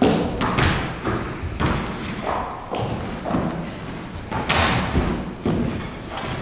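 Irregular thumps and knocks of footsteps on a stage floor and of a backpack and wooden chair being handled, with one sharp knock about four and a half seconds in.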